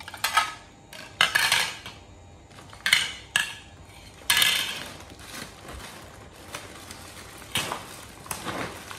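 Ceramic plates clattering as they are set down on a tiled floor, with plastic snack packaging crinkling as it is handled. There are several short, loud clatters and rustles in the first half, then quieter handling and a single sharp click near the end.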